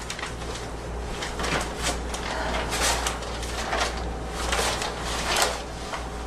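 A girl coughing repeatedly: about half a dozen short, sharp coughs spaced through a few seconds.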